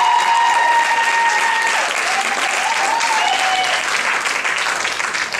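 Audience applauding loudly, with a few long held cheering calls over the clapping. The applause fades near the end.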